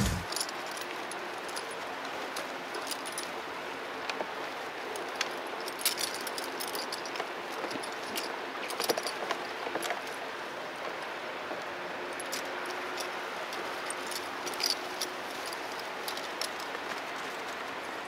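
A standing electric fan running, a steady airy hiss, with scattered light metallic clinks and taps from a horse's halter and lead-rope clip.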